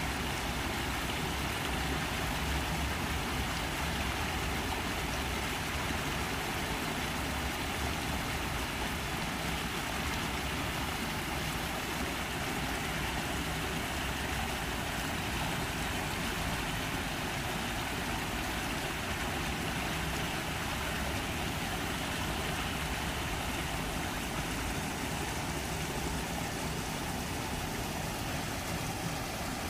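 Steady, even outdoor background noise with no distinct calls or other events.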